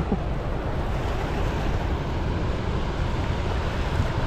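Steady rush of high floodwater pouring through a spillway's gates, a constant noise heavy in the lows.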